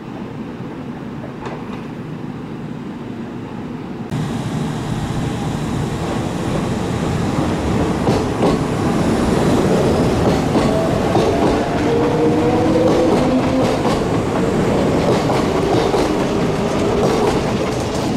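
Kintetsu electric train running past the platform, its wheels clacking over the rail joints. The sound grows louder about four seconds in, with a humming tone rising and falling in the middle.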